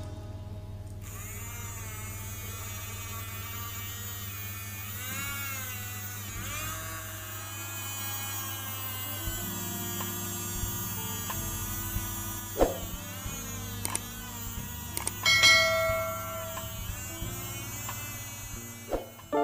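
Small DC hobby motor running a homemade mist sprayer: a steady electric whine whose pitch wavers and glides now and then, with a few sharp clicks, the loudest about two-thirds of the way through.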